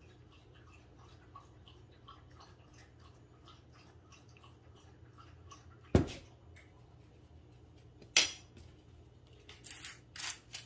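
Kitchen utensil sounds while olive oil is measured into a stainless steel mixing bowl: a sharp clink about six seconds in, another about two seconds later, then a few quicker clicks near the end, typical of a measuring spoon knocking against the bowl.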